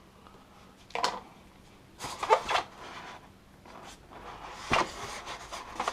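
Packaging being handled while parts are taken out of a box: several short bursts of rustling and scraping, the loudest about two seconds in.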